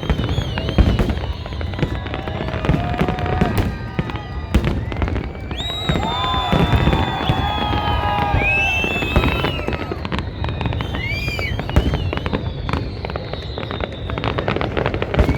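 Fireworks display: a dense run of bangs and crackling bursts, with high whistling tones sliding down in pitch around the middle.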